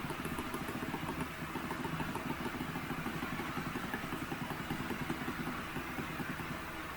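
A small engine idling steadily, with a fast even pulse.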